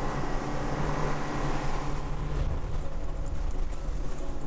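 Boat engine running steadily with the boat under way: a constant low hum.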